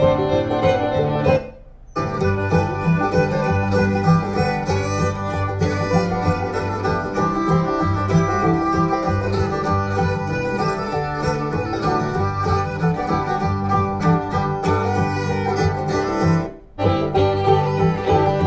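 Bose computer speakers playing instrumental music with plucked, guitar-like strings. The music cuts out briefly twice, once about a second and a half in and once near the end.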